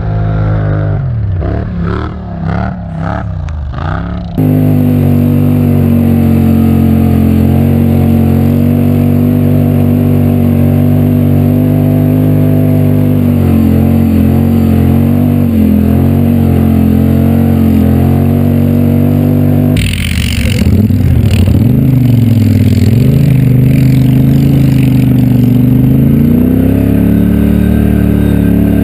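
Quad ATV engine running under way at a fairly steady speed, close to the microphone. A sudden jump to a louder, steadier engine sound about four seconds in, and a rush of noise about twenty seconds in.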